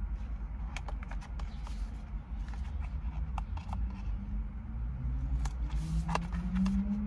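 Small cardboard product box being opened and handled: scattered short clicks and rustles of card and paper, over a steady low rumble.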